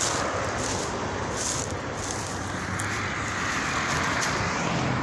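Steady road traffic noise, swelling briefly in the middle as a vehicle passes.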